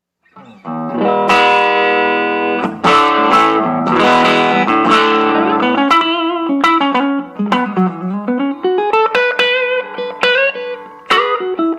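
Electric guitar played through a Fuzz Aldrin one-knob fuzz pedal: ringing fuzzed chords for the first several seconds, then a run of single notes, with one note sliding down and back up about eight seconds in.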